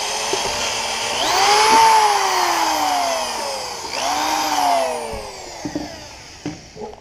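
Corded electric drill with a 1/8-inch bit drilling out misaligned pop-rivet holes in sheet metal. The motor whine speeds up twice and slides back down each time, then winds down and stops about six seconds in.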